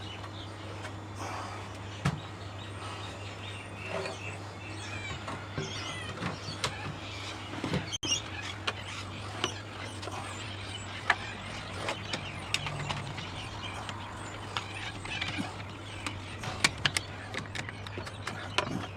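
A low steady hum under scattered short clicks and brief high chirps; no chainsaw is running.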